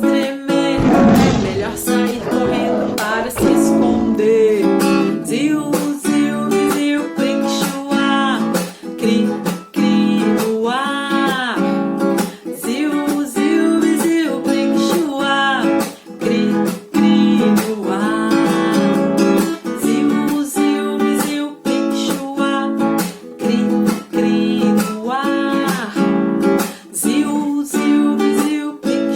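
Acoustic guitar strumming a steady accompaniment, with a voice singing or vocalising over it in rising and falling glides. Near the start, a deep lion's roar plays for about three seconds over the music.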